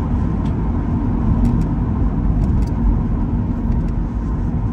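Steady low rumble of tyres and engine inside the cabin of a moving car.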